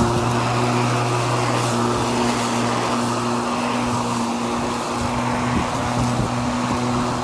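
Swift 40V 18-inch brushless cordless lawn mower running while pushed across grass: a steady electric hum with a few held tones over the whir of the spinning blade cutting grass.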